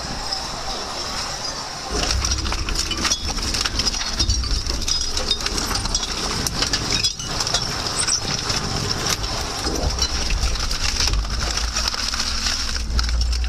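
Twin-shaft industrial shredder's toothed cutter shafts tearing up bicycles: dense crunching, snapping and clanking of metal frames, wheels and spokes over a low machine rumble. The rumble gets heavier about two seconds in, and there is a brief lull a little past the middle.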